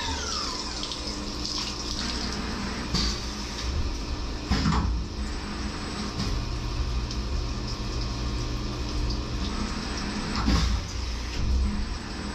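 Flood coolant splashing steadily from the nozzles of a CNC machining center onto the workpiece, with the spindle's whine falling away in the first moment. Two brief louder noises from the machine come about five and eleven seconds in.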